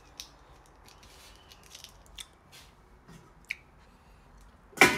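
Quiet handling noise: a few faint clicks and taps as stainless steel pots and a pot lid are moved about, with one sharper click about three and a half seconds in.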